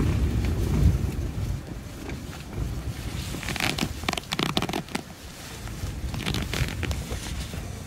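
Nylon tent and sleeping-bag fabric rustling and crackling in bursts, over a low rumble that is loudest in the first second and a half.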